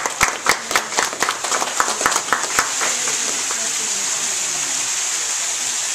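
Clapping at about four claps a second, stopping a little under three seconds in. The steady hiss of a rock waterfall pouring into a swimming pool is left behind it.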